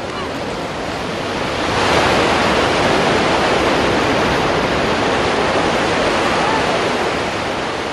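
Ocean surf: a steady rush of breaking waves that grows louder about two seconds in.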